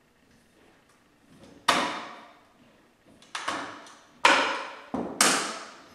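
A steel linear rail and aluminium extrusion bars knocking together as the rail is shifted and seated on the frame. There are about six sharp knocks from about a second and a half in, each dying away over about half a second, the loudest near the end.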